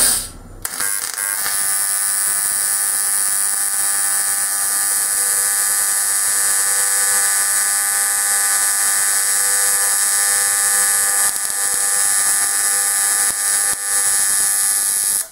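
AC TIG welding arc on aluminum sheet: a steady, even buzz that starts under a second in after a short crackle and cuts off abruptly at the end.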